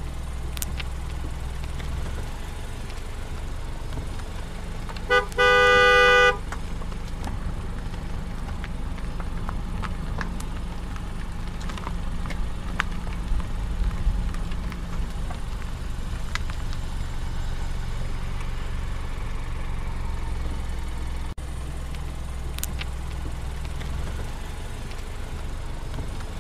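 A vehicle horn honks once for about a second, a few seconds in, over the steady low drone of a car's engine and tyres heard from inside the cabin. The drone eases off near the end as the car slows to a stop.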